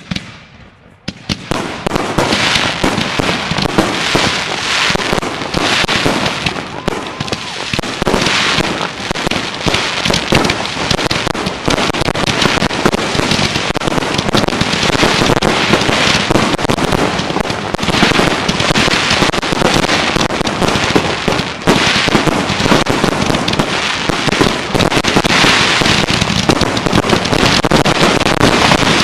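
Consumer fireworks finale: aerial shells launching and bursting one after another in a rapid, unbroken crackling barrage that starts about a second in and keeps going without a pause.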